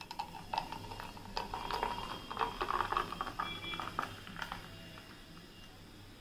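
Carbonated soft drink poured from a bottle over ice cubes in a glass: fizzing and crackling with small clicks of the ice, which fades about four and a half seconds in as the pour stops, leaving a faint hiss of bubbles.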